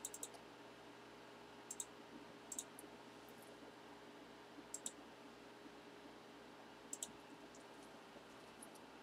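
Near silence broken by a few faint computer-mouse clicks, some in quick pairs.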